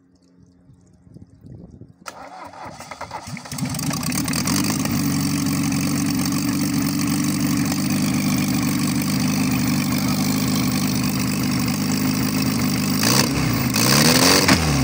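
1974 Mercedes-Benz 240D four-cylinder diesel engine cranked by its starter, catching about three seconds in and then running steadily. Near the end a loud clatter as the spinning engine fan catches a plastic jug and flings it, breaking the fan.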